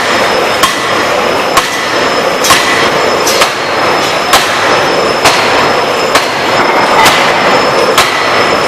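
2-tonne electro-hydraulic open-die forging hammer working, its blows landing in a steady rhythm of about one a second over a continuous loud machine din.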